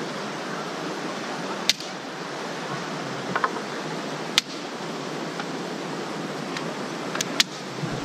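Steady rush of a waterfall, broken by several sharp cracks of dry sticks being snapped for firewood, two of them in quick succession near the end.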